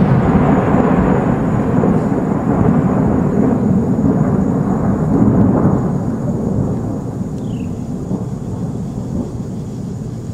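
Thunder rumbling in a long, low, rolling peal, loud at first and slowly dying away from about six seconds in.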